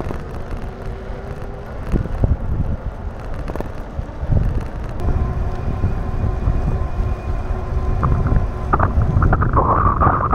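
Wind buffeting the microphone of a camera riding on a moving e-bike, with the rumble of fat tyres on pavement. From about halfway a faint steady whine, typical of the e-bike's electric hub motor, runs along under the wind.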